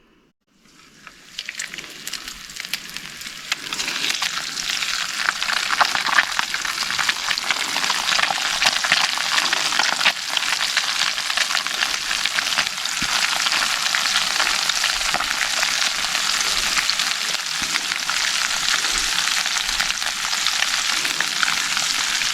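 Small cará fish frying in hot oil: a dense crackling sizzle that starts about a second in, builds over the next few seconds, then holds steady.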